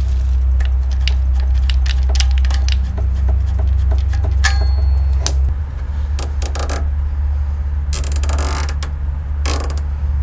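Refrigerant vacuum pump running with a steady low hum, evacuating the air conditioner's lines to draw out moisture. Light metallic clicks and jingles of small parts being handled over it, and two short rustles near the end.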